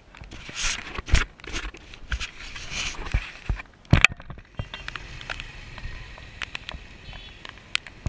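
Rustling and sharp knocks of handling a GoPro against a jacket, then from about halfway a steady hiss with scattered small ticks.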